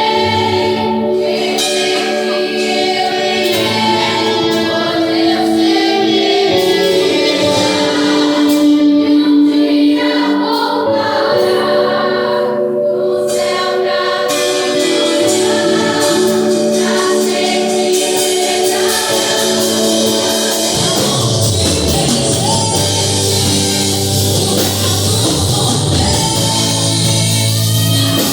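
A song with choir-style group singing over sustained chords. About twenty seconds in, a low bass line comes in and the music becomes fuller and brighter.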